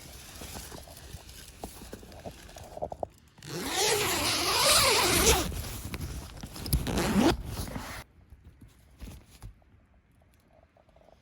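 Tent door zipper being drawn open in a long loud pull about three seconds in, followed by a shorter pull, after light rustling and clicks of handling.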